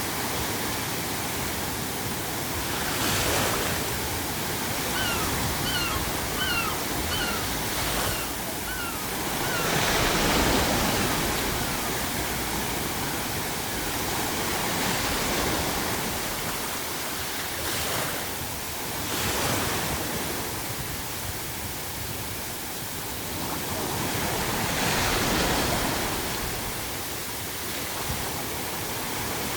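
Ocean waves breaking and surging every few seconds over a steady bed of pink noise. A gull calls in a run of short cries about five to nine seconds in.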